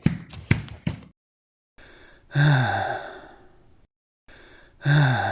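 Shrek, the animated ogre, gives a heavy voiced sigh that falls in pitch and fades, and then the same sigh again. Before the sighs there is about a second of quick knocks.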